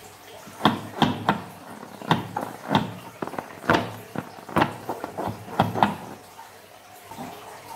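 Fingers squeezing and rubbing a taut filled rubber balloon, giving about ten short, sharp squeaks and knocks, one every half second to a second, which stop about six seconds in.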